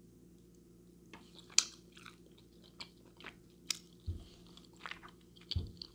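Close-miked chewing of breaded boneless chicken wings: irregular wet, crunchy mouth clicks begin about a second in, and two short low thumps come in the second half.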